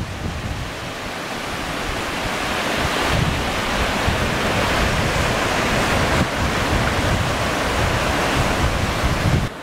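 Ocean surf breaking and washing in at the shore: a steady rushing wash that grows louder over the first few seconds.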